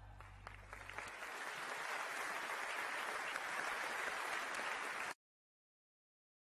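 Audience in a large hall applauding, building up over the first couple of seconds and then steady. The applause cuts off abruptly about five seconds in.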